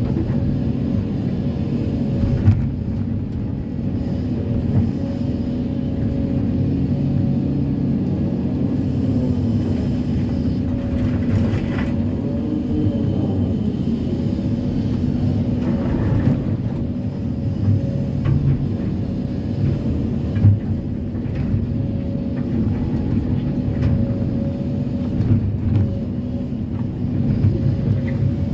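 Kobelco SK330-10 crawler excavator's diesel engine running steadily with a constant hydraulic whine, heard from the cab, while the bucket scrapes and knocks against broken rock a few times.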